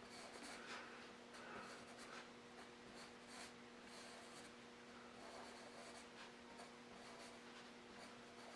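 Faint scratching of a pencil on paper in many short strokes, as lines are drawn, over a low steady hum.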